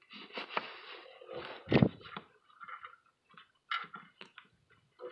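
Scattered clicks, clinks and scrapes of hand work with a wrench on the strut's mounting nuts and bolts, with one louder knock a little under two seconds in.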